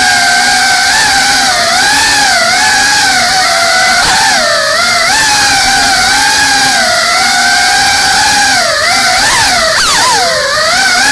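GEPRC Cinelog 35 FPV cinewhoop's brushless motors and ducted propellers whining, the pitch rising and falling constantly with the throttle. Near the end the whine drops sharply and sweeps quickly back up as the throttle is chopped and punched.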